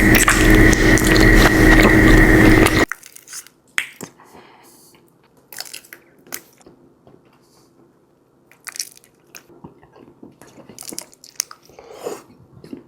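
A loud, dense noise with steady hums cuts off suddenly about three seconds in. Then raw honeycomb is chewed close to the microphone: sticky wax bites, crunches and wet squishes, as scattered sharp clicks and smacks between quiet moments.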